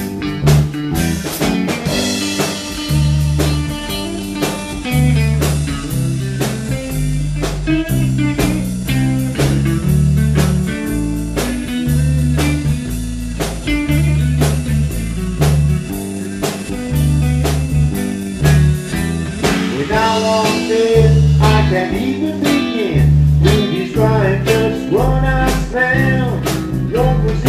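Live band playing an instrumental break between sung verses: electric guitar over electric bass and a drum kit keeping a steady beat, with the lead guitar line busier in the last third.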